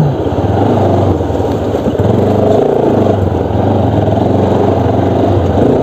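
Motorcycle engine running at low revs while the bike is ridden slowly over a rough, muddy dirt road, with a steady rush of road and wind noise. The engine note drops back about a second in and picks up again near two seconds.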